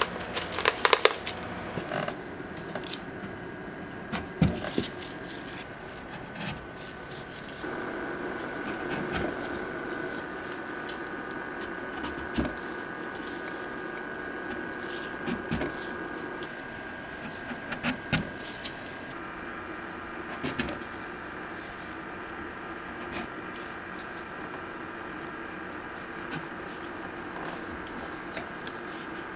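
Wooden skewers clattering against each other and a stainless steel pot as a handful is pulled out, loudest about a second in, then scattered light taps and clicks as skewers are pushed into whole apples. A steady background hum runs underneath.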